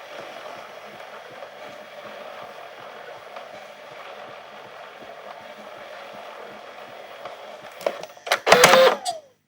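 VHS camcorder tape transport running with a steady mechanical whir. About eight seconds in come a few loud mechanical clunks and a short falling whine, and then it cuts off.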